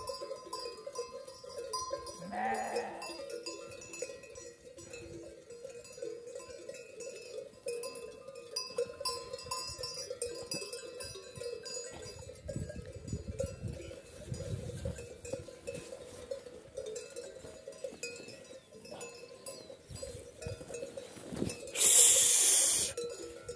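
Bells on a grazing flock of sheep and goats jingling continuously, with one sheep bleating about two seconds in. A loud rush of noise lasts about a second near the end.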